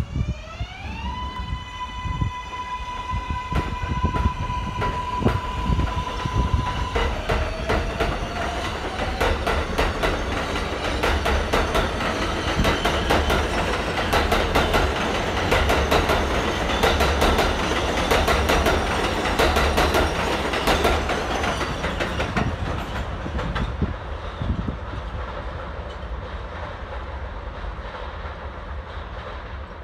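Kawasaki R188 subway train accelerating out of an elevated station. Its electric propulsion whine rises in the first second, holds one steady pitch for several seconds and then drops away. The wheels then clatter on the track, loudest as the cars pass and fading toward the end as the train pulls away.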